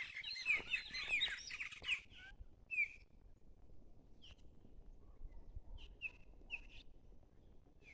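A flock of chopi blackbirds (pássaro-preto) calling together in a noisy chorus of overlapping chirps and whistles. It thins out after about two seconds to a few scattered single calls.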